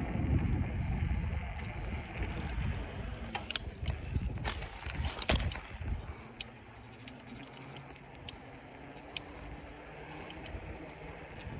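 Riding a bicycle, with wind rumbling on the microphone and a cluster of clicks and rattles about four to five seconds in. The wind noise drops after about six seconds, leaving faint scattered ticks.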